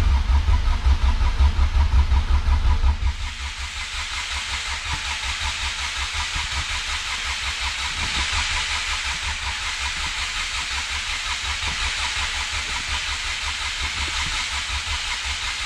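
Honda B18 four-cylinder engine cranked over on the starter without firing, with injectors and distributor unplugged, to prime the oil system and build oil pressure. A steady rhythmic pulsing is loudest for the first three seconds, then goes on more quietly with a hiss until it stops near the end.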